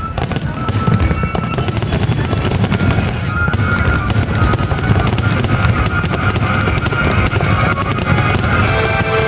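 Fireworks display: dense, rapid crackling over a continuous low rumble of shell bursts, with music playing alongside.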